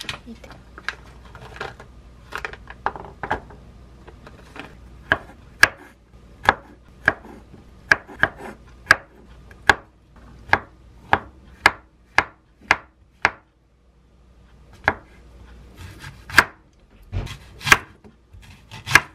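Kitchen knife chopping on a wooden cutting board, trimming garlic cloves and then cutting an onion. Light taps at first, then a steady run of sharp knocks about two a second. After a brief pause, a few louder chops come near the end.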